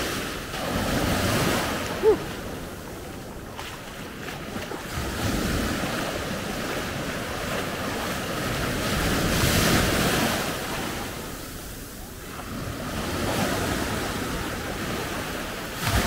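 Small sea waves breaking in the shallows and washing up over a sandy beach, the surf swelling and fading about every four seconds.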